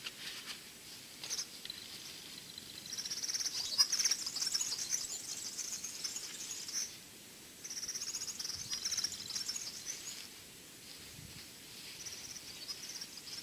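High, rapid chirping trills from wildlife in two stretches of a few seconds, with a few sharp clicks of a knife tip prodding a mobile phone battery, the loudest about four seconds in.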